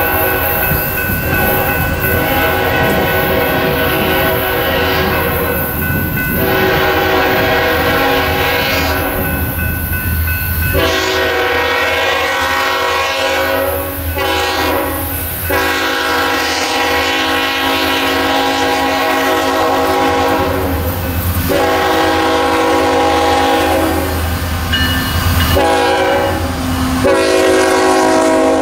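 Nathan K5HL five-chime air horn on a CSX ET44AH locomotive sounding a run of long blasts broken by a few short ones, the warning pattern for a grade crossing ahead. Underneath is the low rumble of the approaching diesel locomotives, which pass near the end.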